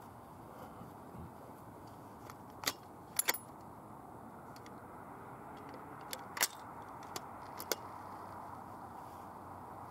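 A handful of short, sharp clicks, one or two at a time, over a steady low outdoor hiss.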